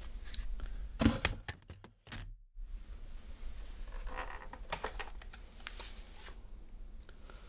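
Framed pictures being handled on a wall: a sharp knock about a second in, then a run of small clicks and rattles, and more light taps of a frame against the wall around four to five seconds in.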